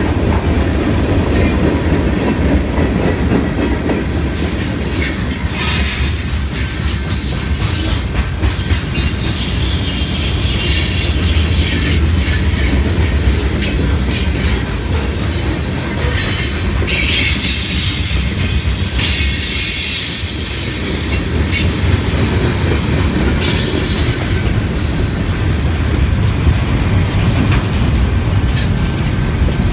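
Freight cars rolling past at close range: a steady, loud rumble of steel wheels on rail with wheel clatter over the joints. Bursts of high-pitched wheel squeal rise out of it several times, around 6 seconds in, near 10 seconds and again from about 17 to 20 seconds.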